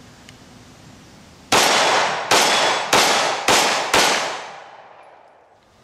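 Five 9mm pistol shots from a Glock 19 firing 115-grain +P+ hollow points, in quick succession and coming a little faster each time, starting about a second and a half in. Each shot leaves a ringing tail, and the last fades out over about a second and a half.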